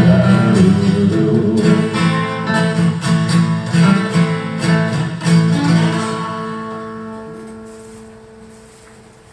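Acoustic guitar playing the last bars of a song, strummed and picked chords that stop about six seconds in on a final chord, which rings out and fades away.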